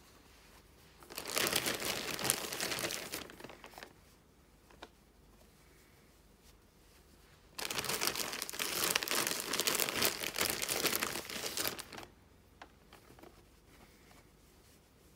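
Plastic mailing satchel crinkling as beanies are handled and pushed into it, in two stretches of a few seconds each, with a few faint rustles between.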